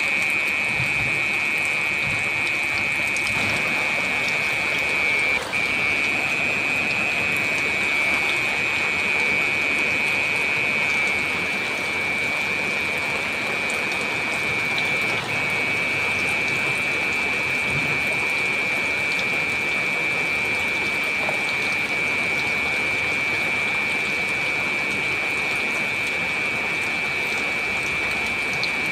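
Heavy rain falling steadily, a constant hiss, with a steady high-pitched whine running through it.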